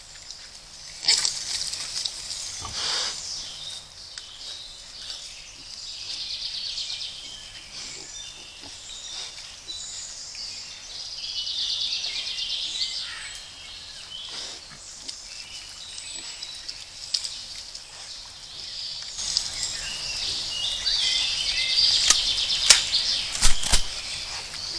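Woodland birds singing throughout, with scattered short knocks and rustles from a wild boar moving about the mud wallow, busier near the end.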